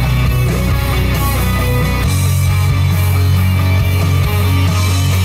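Loud background rock music with guitar and a heavy bass line.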